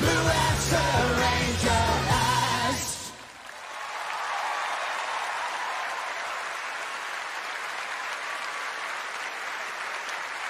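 A live pop-rock band and male singer finish the song, the music stopping abruptly about three seconds in. A large audience then applauds steadily.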